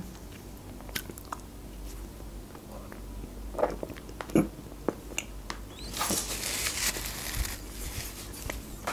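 Close-miked mouth sounds of eating a chocolate-coated Magnum ice cream bar off its wooden stick: scattered wet clicks and smacks, with a longer wet stretch about six seconds in.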